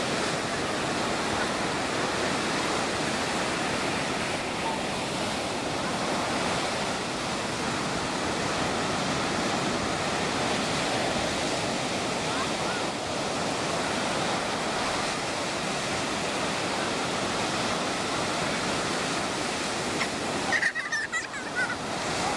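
Ocean surf breaking and washing up a sandy beach: a steady, even rushing. Near the end the rush briefly drops away and a short, sharper sound breaks in.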